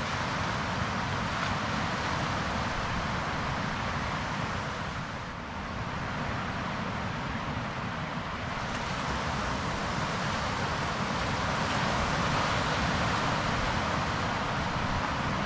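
Steady outdoor wash of wind and sea on a boulder shore, swelling and easing slowly, with a brief lull about five seconds in.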